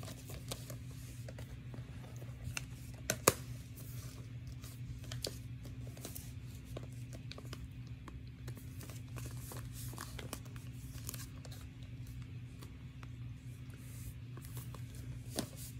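Plastic Blu-ray and DVD cases being handled and stacked: scattered light clicks and rustles, with a sharper click about three seconds in and another near the end, over a steady low hum.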